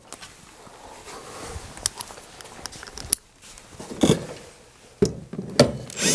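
Handling noise: rustling with a few scattered light knocks and clicks as a cordless drill-driver and the dehumidifier's plastic housing are handled. Right at the end the drill-driver starts to run on a housing bolt.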